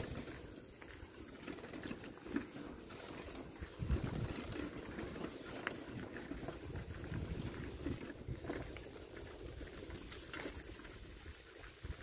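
Footsteps on a dirt-and-gravel path: irregular crunching and rustling, with a louder thump about four seconds in.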